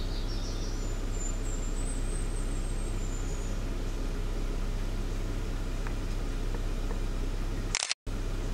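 Steady low hum and hiss, with a thin, very high songbird song rising in pitch during the first few seconds. A click and a brief dropout come near the end.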